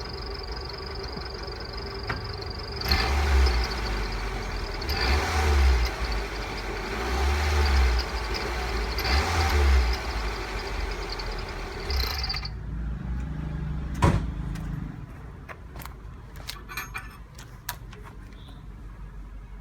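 Kia Morning's small petrol engine, fitted with a fake turbo whistle, idling with a thin steady high tone and blipped four times. The whistle effect sounds weak. The engine stops about two-thirds of the way through, followed by a knock and a few small clicks.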